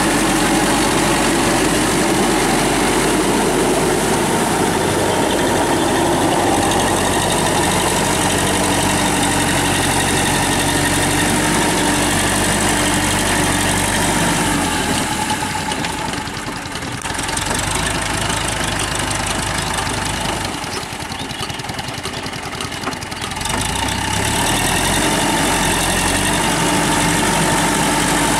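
TAFE 5900 DI tractor's diesel engine running steadily while driving a rear rotary tiller through wet paddy mud. The engine sound eases off twice in the second half, briefly, before coming back to full strength.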